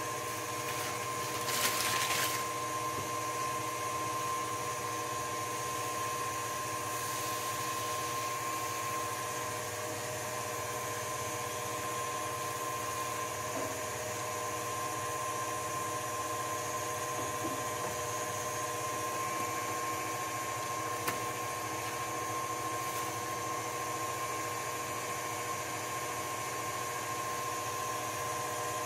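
KitchenAid stand mixer motor running steadily with a steady whine, driving the pasta cutter attachment as a sheet of dough is fed through and cut into ribbons. A short noisy burst about two seconds in.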